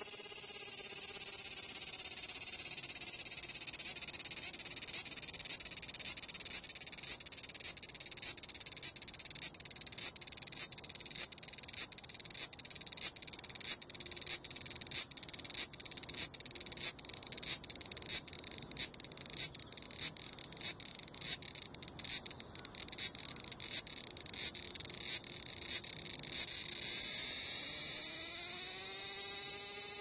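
Large brown cicada (abura-zemi, Graptopsaltria nigrofuscata) singing: a continuous high drone that breaks about four seconds in into a pulsed 'gii-gii-gii' call at roughly one and a half pulses a second, then returns to the long drone near the end. The long drone is distorted in the recording. The uploader links the drone to the cicada sitting still and the pulsed call to it moving about.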